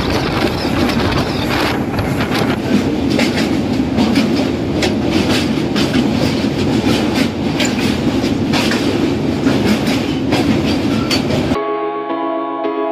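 Moving passenger train heard from its open doorway: a steady rumble of wheels on the rails with frequent sharp clacks. Near the end the train sound cuts off abruptly and ambient background music takes over.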